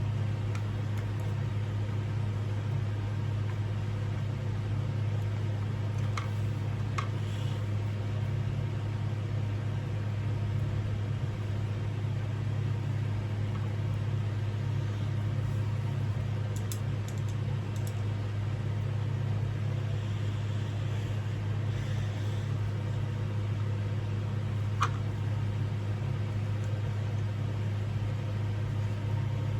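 A steady low hum fills the background, with a few light clicks and taps now and then as ceiling fan blades and their bracket hardware are handled and fitted.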